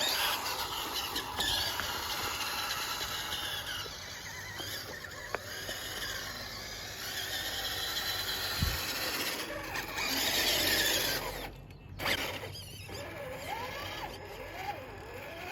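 Electric remote-control truck driving, its motor and gears whining with a grinding edge. It grows louder about two-thirds of the way in, then cuts out briefly.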